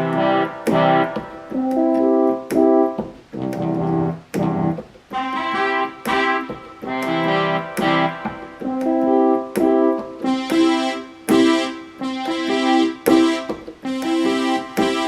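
Yamaha PSR-350 portable keyboard playing short phrases of notes through its built-in voices, one phrase after another. The timbre changes from phrase to phrase and turns brighter from about ten seconds in.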